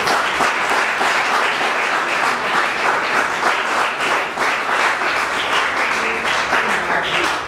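Audience applauding: many hands clapping in a dense, steady patter that starts suddenly and keeps an even level.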